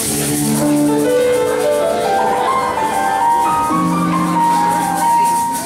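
Live band music led by an electric keyboard: held chords under a line of single notes that climbs step by step over the first few seconds, then holds a high note.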